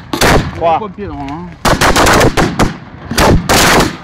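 Fireworks going off at close range: sharp bangs in quick volleys, a short burst right at the start, then dense rapid salvos from just under two seconds in and again from about three seconds in.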